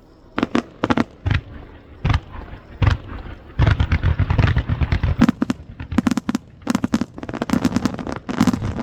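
Aerial fireworks shells bursting: a few separate sharp bangs at first, then from about three and a half seconds a dense, rapid-fire barrage of bursts.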